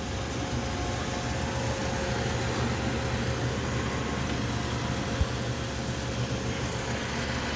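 MSC 1340GH 13-by-40-inch tool room lathe running smoothly with its threading feed engaged and the carriage moving: a steady machine hum with a few held tones. A single short click about five seconds in.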